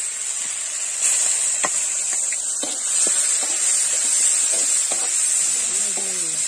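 Spice paste sizzling steadily in hot oil in a cooking pan, with a few light clicks.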